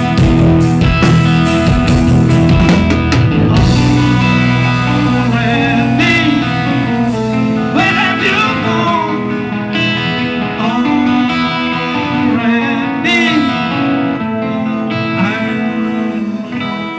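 Live rock band playing electric guitars and drum kit with a singer. Heavy drumming fills the first few seconds, then the playing eases into held chords and wavering, bent guitar or vocal lines, growing quieter near the end.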